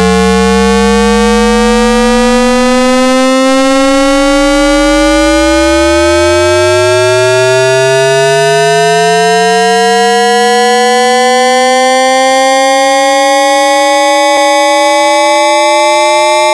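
Loud electronic 'AM radio' sound effect: several pure whistling tones slowly glide upward in pitch together, like the whistles heard when tuning an AM radio. A deep tone sweeps up out of the bass at the start, and a second does the same about four seconds in.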